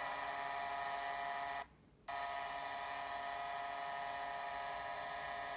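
Arena goal horn sounding for a goal in long, steady blasts, heard through a TV speaker, with a short break about two seconds in.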